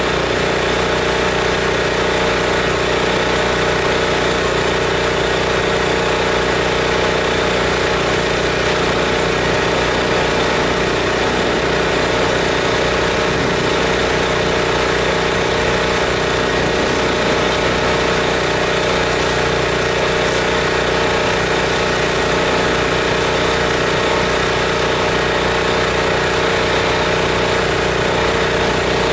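Pressure washer's gas engine and pump running steadily at constant speed with an unchanging hum while the house is soaked through a downstream chemical injector.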